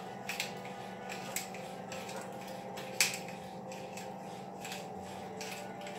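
Hand pepper mill grinding black peppercorns: a run of short, irregular crunching clicks, one louder than the rest about three seconds in, over a steady low hum.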